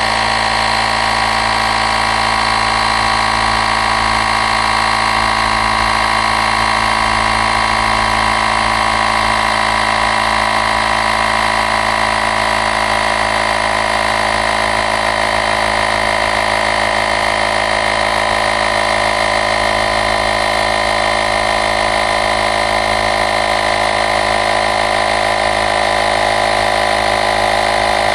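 AUXITO A501 portable tire inflator's electric air compressor running steadily with an even, many-toned hum, pumping an e-bike tyre up from 14 psi toward its 30 psi setting.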